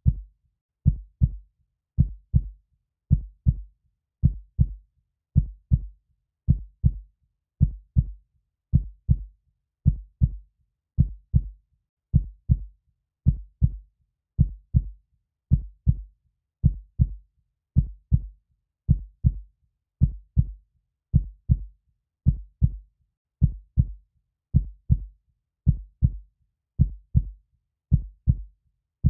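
Heartbeat, slow and steady: each beat is a low double thump, lub-dub, repeating at an even pace with silence between beats.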